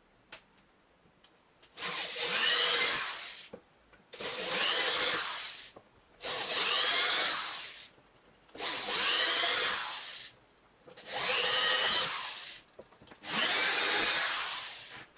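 Electric drill run in six short bursts of about two seconds each with brief pauses between, its motor whine rising and settling within each burst.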